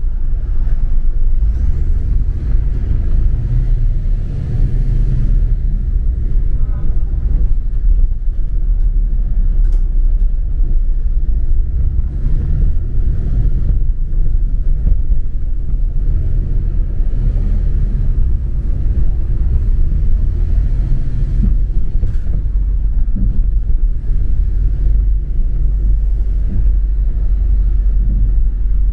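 Double-decker bus on the move, heard from on board: a steady low rumble of engine and road noise.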